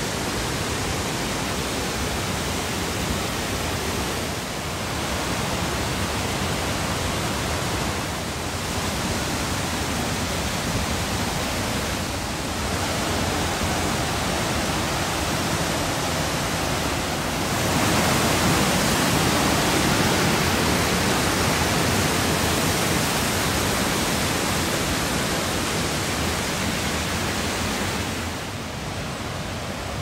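Rushing water of a mountain stream and its cascades, a steady hiss that grows louder from a little past the middle and drops back near the end.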